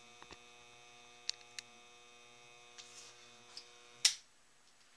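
Steady electric hum of a small lathe motor with a few light clicks, then a sharp click about four seconds in, after which the hum stops.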